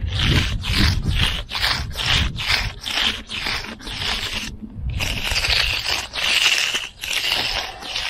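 Hand magnesium float scraping back and forth over fresh concrete: short strokes about two a second, then two longer sweeps. The float is smoothing a rough patch that stayed in the shade and has not set as far as the rest of the slab.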